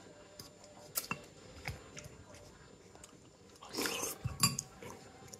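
Wooden chopsticks tapping and clicking against a plastic takeout container of noodles: a few sharp, separate clicks, with a short louder scraping noise and the loudest tap about four seconds in.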